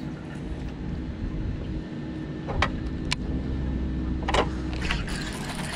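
Steady low hum with a rumble underneath, and a few sharp clicks in the middle, the last about four seconds in as a baitcasting reel is handled.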